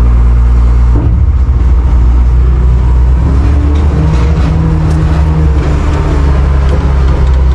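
Diesel engine of a farm loader working a bucket load of gypsum, running loud and steady, with a higher engine tone coming in for a couple of seconds midway.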